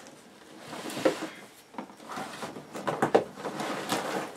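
Things being rummaged in and pulled out of a cardboard box: rustling and a few light knocks, the sharpest about a second in and again about three seconds in, as a coiled cable is lifted out.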